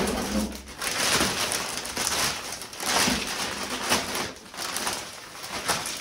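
Clear plastic wrapping rustling and crinkling as it is pulled off a radiator. The noise comes and goes in several swells.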